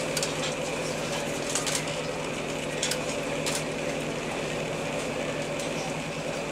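Steady mechanical drone of a yacht's onboard machinery, an even hum at several fixed pitches, with a few faint ticks.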